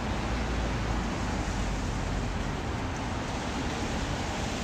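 Steady background hiss with a low rumble and no distinct events.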